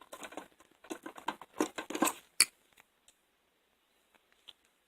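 Metal pliers clinking and rattling against each other as they are handled in a tool-cart drawer, ending in one sharp click after about two and a half seconds, followed by a few faint ticks.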